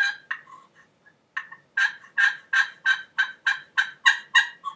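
H.S. Strut Lil' Deuce double-sided glass turkey pot call worked with a wooden striker, making hen yelps. A few scattered notes come first, then a steady run of about ten yelps at roughly three a second.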